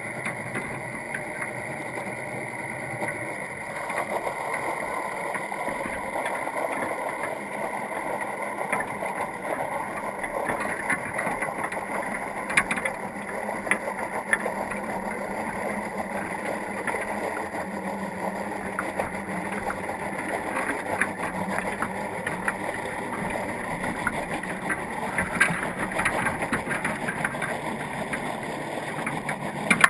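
Underwater sound picked up by a camera inside a crab pot on the sea floor: a steady rushing hiss with scattered sharp clicks and ticks. It grows somewhat louder about four seconds in.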